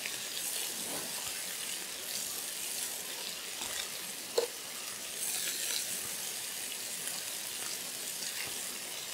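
Venison loin frying in oil in a hot pan, a steady sizzle, with one short knock about four seconds in.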